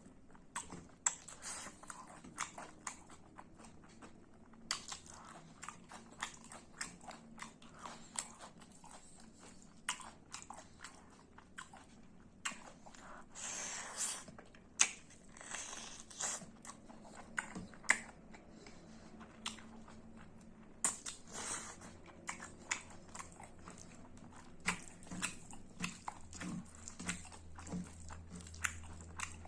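Close-up eating sounds: chewing with many irregular wet mouth clicks and smacks, and a few longer crunchy or slurping smears.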